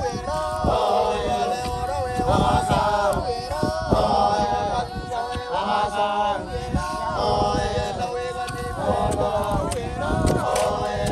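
A group of men chanting together in long held, gliding notes as a work song while digging, with dull thuds of digging sticks and spades striking the soil.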